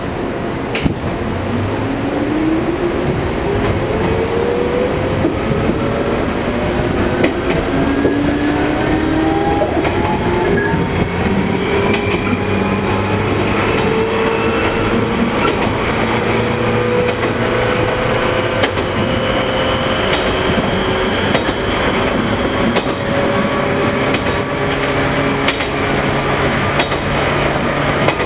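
MT54 DC traction motors of a 115-series electric train growling under power: their whine rises steadily in pitch as the train gathers speed, then levels off and climbs only slowly. Steady running rumble underneath, with occasional sharp clicks from the rails.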